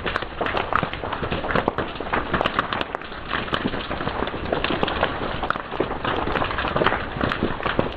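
Wood fire burning, with a steady hiss and dense, irregular crackling and snapping pops.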